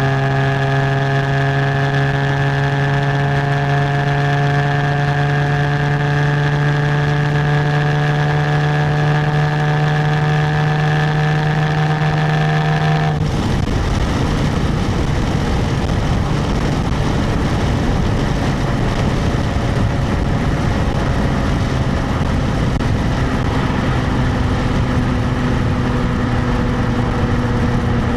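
Stock exhaust of a 2017 Jaguar F-Type, picked up at the rear number plate, running at a steady engine note that rises slowly. About halfway through the note drops away suddenly, leaving mostly road and wind rush with a faint, lower engine hum.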